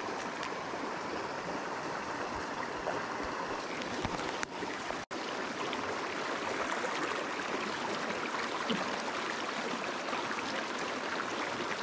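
Shallow, rocky mountain stream running over stones: a steady rush of flowing water, briefly cutting out about five seconds in.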